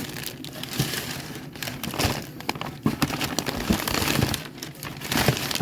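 Packaging being handled, crinkling and rustling with irregular crackles.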